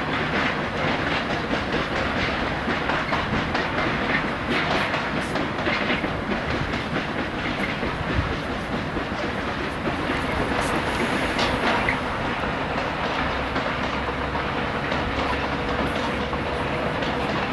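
Freight train of open wagons rolling past: a steady noise of wheels on the rails, full of small rapid clicks.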